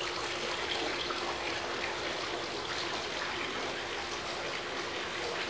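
Steady running water from a backyard spa and swimming pool, a continuous trickling splash with a faint steady hum underneath.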